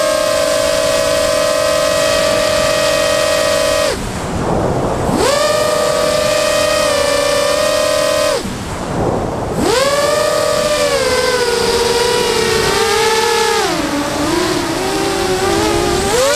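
The quadcopter's electric motors and propellers whining, heard through its onboard camera. The steady high whine cuts out twice for about a second, leaving a rushing wind noise, as the throttle is cut, and sweeps back up each time. Later its pitch dips lower and wavers.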